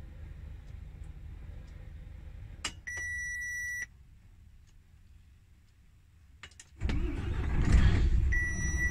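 Truck ignition switched on: a click, then a steady dashboard warning beep for about a second. About seven seconds in, the Mercedes-Benz Actros diesel engine cranks, catches and keeps running loudly, and the warning beep sounds again near the end.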